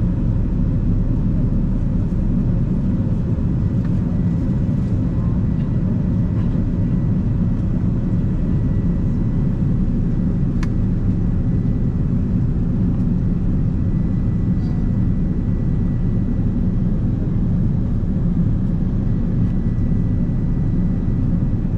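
Airbus A380 cabin noise: a steady low rumble heard from inside the passenger cabin, with a faint high steady whine and a single click about halfway through.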